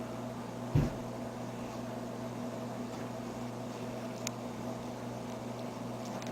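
A steady mechanical hum, with one dull thump just under a second in and a faint click about four seconds in.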